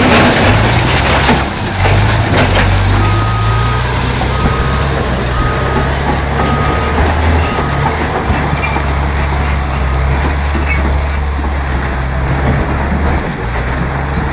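Caterpillar D10T bulldozer's diesel engine running under load, loud and steady. There is some clatter in the first couple of seconds, and a string of evenly spaced high beeps for about five seconds in the first half.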